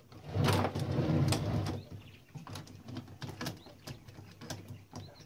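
Tools and metal parts of a Klein Adler 2 portable typewriter being worked during disassembly: a rough scraping noise lasting about a second and a half near the start, then scattered small metallic clicks and taps.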